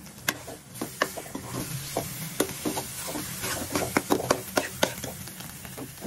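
Metal spoon stirring and scraping cooked radish-leaf bhujia in a metal pot, with many irregular clicks of the spoon against the pot over a soft sizzle from the low heat.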